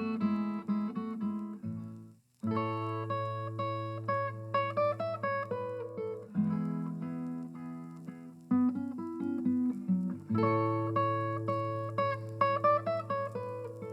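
Guitar music: plucked notes over held low bass notes, breaking off for a moment about two seconds in before carrying on.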